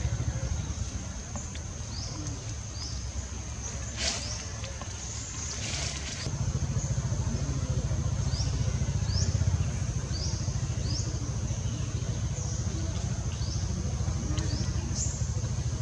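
Forest ambience: a steady high insect drone with short chirping calls repeating every second or so, over a low steady rumble. There is a brief hiss about four seconds in.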